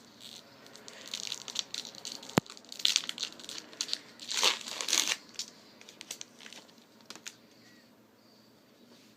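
Baseball card pack wrapper being torn open and crinkled in the hands, with one sharp click about two and a half seconds in. The crinkling is loudest near the five-second mark, then dies down to a few faint handling ticks.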